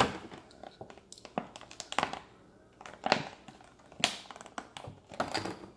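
Packaging from a Pokémon trading-card collection box crinkling and clicking in short bursts about once a second as items are taken out of it.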